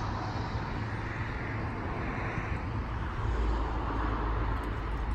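Steady outdoor background noise with a low rumble that grows stronger about three seconds in.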